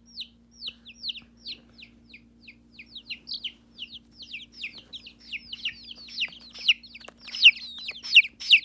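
Chickens peeping: a run of short, high-pitched calls, each falling in pitch, about three a second, with more calls overlapping and growing louder from about six seconds in. A faint steady low hum runs underneath.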